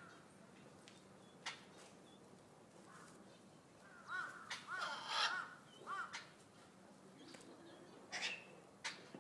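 Vulturine guineafowl calling: a few short sharp notes, then a quick run of repeated calls about four to six seconds in, and two more sharp notes near the end.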